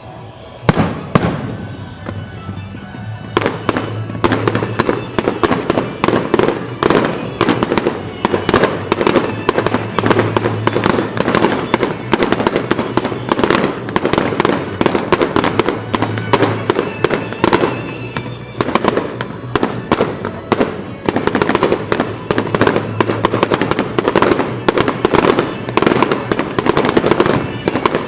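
Aerial fireworks going off in a rapid, continuous barrage of bangs and crackles. A few shots come about a second in, then the barrage runs without a break from about three seconds. Music plays underneath.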